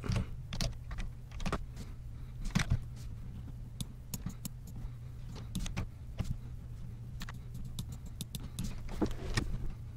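Scattered, irregular clicks of a computer mouse as edges are selected for a fillet, over a steady low hum.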